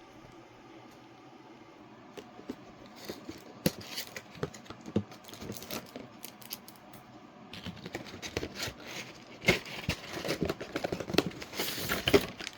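Cardboard toy box being opened by hand: scattered sharp clicks and taps, then, from a little past halfway, a busier stretch of rustling packaging with louder clicks.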